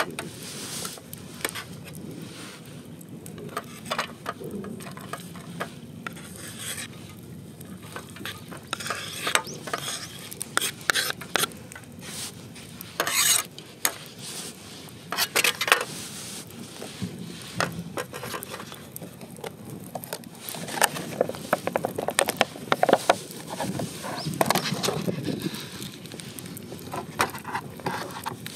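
Camp cooking handling: a stainless steel cup being set down and handled on a metal table, with utensils clinking, tapping and scraping. The knocks come in scattered clusters, busier in the second half.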